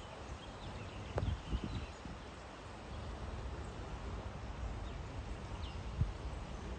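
Outdoor countryside background noise with a few faint bird chirps, and a few soft low thumps: two about a second in and one near the end.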